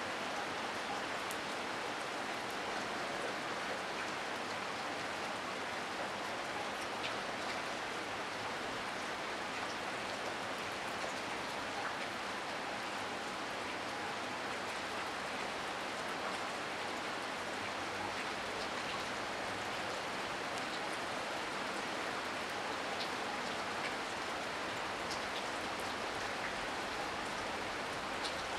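Heavy rain falling steadily: an even hiss with a few sharp drop ticks scattered through it.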